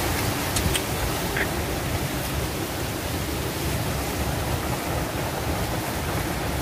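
Steady rushing hiss of background noise, with a few faint ticks about a second in as a machete blade pares the peel from a fruit.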